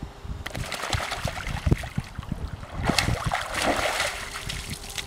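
A black Labrador retriever wading through shallow lake water, its legs churning and splashing as it comes out onto the shore. The splashing starts about half a second in and is busiest near the middle.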